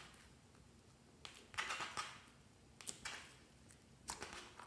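Clear slime being peeled up off a tabletop and folded by hand, giving soft sticky crackles and squelches in several short bursts, the longest about two seconds in.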